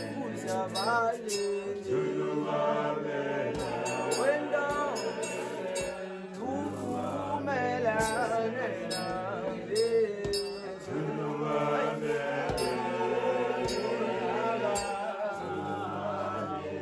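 Background music: a song with sung vocals over steady bass notes and a regular beat.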